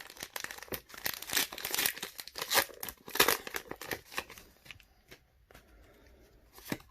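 Foil Pokémon booster pack wrapper being crinkled and torn open: a dense run of sharp crackles for about four seconds, thinning to faint rustling.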